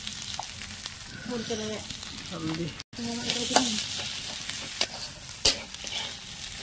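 Onion and ground masala paste sizzling in hot oil in a kadhai while a metal spatula stirs and scrapes around the pan. There is a sharp knock of the spatula against the pan about five and a half seconds in, and the sound breaks off for an instant a little before three seconds.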